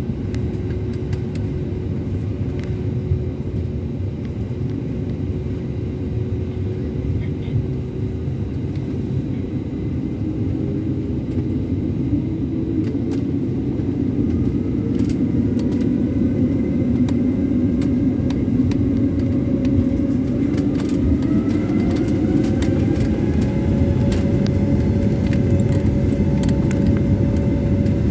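An airliner's jet engines heard from inside the cabin: a steady rumble, then from about halfway through a whine rising in pitch as the noise grows louder, the engines spooling up to takeoff thrust.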